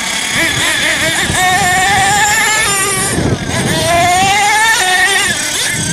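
Engines of Thunder Tiger MTA4 radio-controlled monster trucks whining at high pitch, rising and falling with the throttle. One climbs in a long rising whine about four seconds in.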